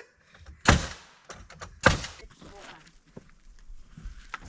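Two loud, sharp nail-driving strikes into wooden wall framing, about a second apart, followed by a few lighter knocks of lumber being handled.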